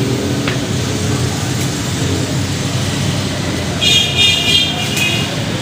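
Steady rumble of road traffic, with a short high-pitched vehicle horn toot about four seconds in.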